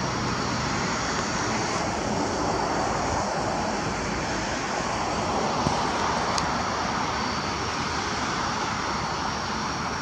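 Steady, even roar of a distant airplane overhead, with a steady high hiss above it.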